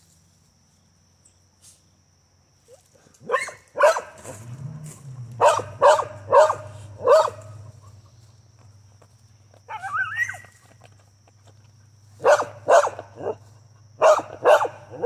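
Carolina dogs barking in short volleys, excited at a chipmunk hidden in a burrow under a tree that they are digging at; a rising whine comes about ten seconds in. The first three seconds are nearly quiet.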